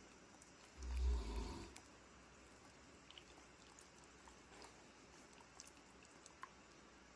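A dog's short low growl about a second in, lasting about a second. After it, only faint small clicks as the dogs nibble at food held in fingers.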